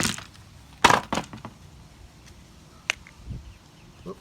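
A few sharp knocks and clunks of hard parts being handled or set down: one at the start, two close together about a second in, and a short tick near three seconds.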